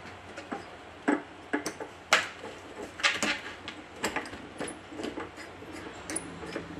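Corrugated stainless steel flex line being handled and its fitting hand-threaded onto a water-filter control valve: a string of irregular sharp clicks and clinks, the loudest about two seconds in.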